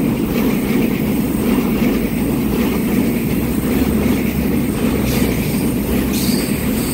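Taiwan Railway EMU3000 electric multiple unit passing close by, with a steady rolling noise of its wheels on the rails.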